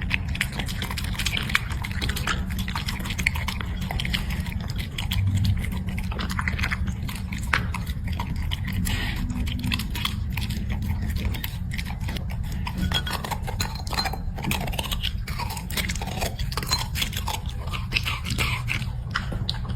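A dog chewing and biting its food: a dense, irregular run of small crunching and smacking clicks over a steady low hum.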